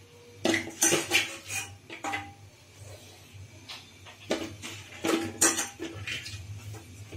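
Metal utensil clattering and scraping against a metal kadai holding cauliflower stalks, leaves and hot water, in two bursts of quick clinks.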